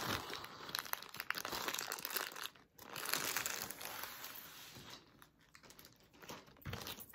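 Clear plastic packaging sleeve crinkling and rustling as a belt is slid out of it. The crinkling is busiest over the first few seconds, breaks off briefly a little before three seconds in, and thins out towards the end.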